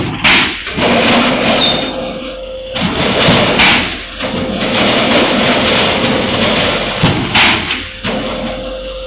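Heavy-duty C and Z purlin roll-forming machine running: a steady hum under loud, noisy mechanical working sound that comes in stretches, dropping away briefly every second or few, with a few sharp knocks.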